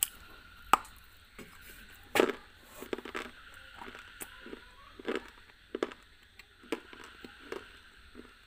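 A bite snapping off a piece of a hard, brittle block, close to the microphone, followed by crunchy chewing with a crunch about once a second. The loudest crunch comes about two seconds in.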